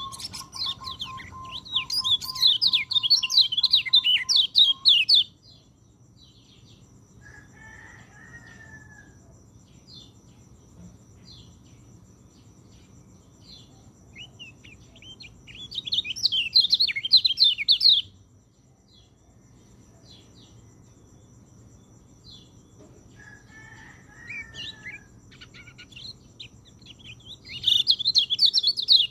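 Peleci songbird singing in three loud bursts of fast, high chirping: about five seconds at the start, two seconds around the middle, and again near the end. Quieter short calls come between the bursts, and a steady whistle sounds under the first burst.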